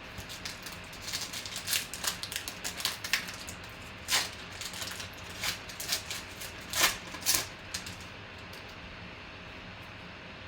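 Cardboard trading cards and packs being handled and flipped through: a run of crisp clicks and rustles, with three louder snaps in the middle, that stops about two seconds before the end.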